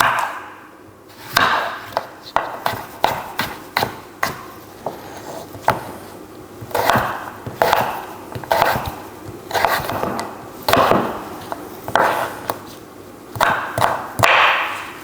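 Knife chopping potatoes into chips on a chopping board: irregular sharp knocks of the blade against the board, a few a second, with scraping swishes between them.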